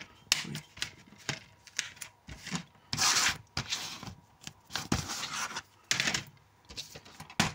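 Plastic DVD case being handled: an uneven series of clicks, rubs and short scrapes, with a sharp click near the end.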